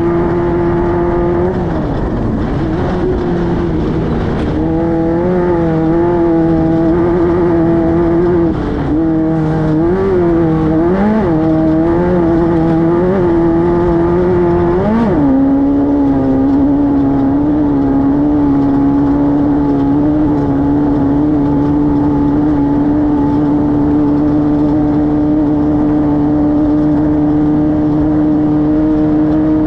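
Air-cooled 1600cc VW flat-four of a Class 5-1600 desert race car running hard at high revs. In the first half the pitch dips and climbs back several times as the throttle is eased and reapplied. After about 16 seconds it holds a steady high note.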